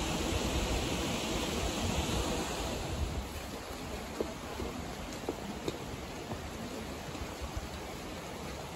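Steady rushing outdoor noise with a low rumble for the first three seconds, then a little quieter, with a few faint clicks.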